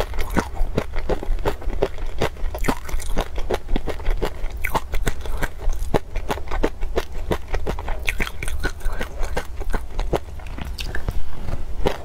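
Close-miked chewing and crunching of peanuts in a chili-oil sauce, with many quick, crisp crunches a second.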